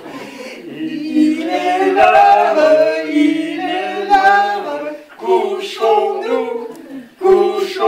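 Actors singing a song without accompaniment, in long held notes, with short breaks between phrases.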